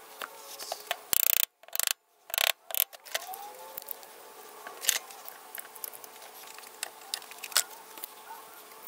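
Plastic one-handed trigger bar clamps being ratcheted tight onto glued wooden handle scales. There is a quick run of loud ratcheting squeezes a second or two in, then scattered single clicks as the clamps are set and adjusted.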